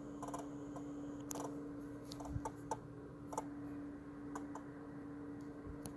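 Irregular clicking and ticking from the engine bay of a Kia Sportage QL, more than ten minutes after the engine was switched off, over a steady faint hum.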